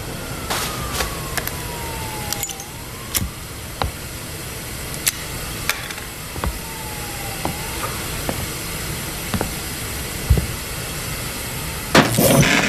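An emergency-vehicle siren wailing faintly over a steady traffic hum. Twice its pitch slides slowly down over two to three seconds and then briefly back up. Scattered sharp knocks and clicks come throughout, and a loud rough noise lasting about a second comes near the end.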